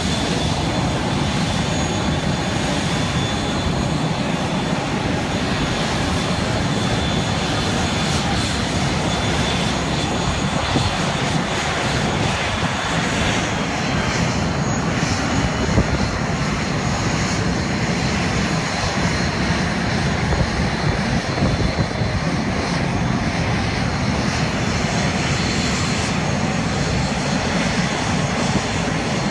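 Fixed-wing aircraft engine running steadily overhead as a plane flies, a dense continuous noise whose highest hiss thins out about halfway through.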